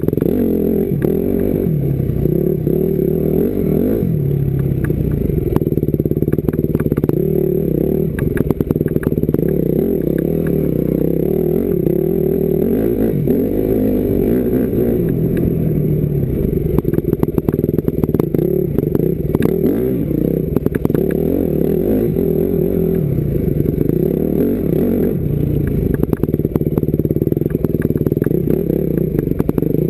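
Yamaha YZ250F's single-cylinder four-stroke engine running hard under load, its revs rising and falling as the motocross bike is ridden, with scattered knocks and rattles from the bike over rough ground.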